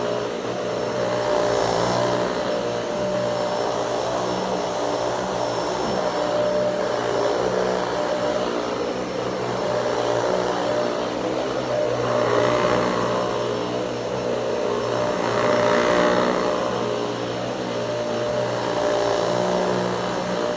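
Upright vacuum cleaner running steadily, a constant motor whine under a rushing-air sound that swells and eases a few times.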